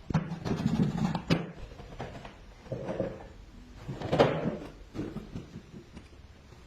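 Irregular knocks, clicks and short scrapes of hard objects being handled.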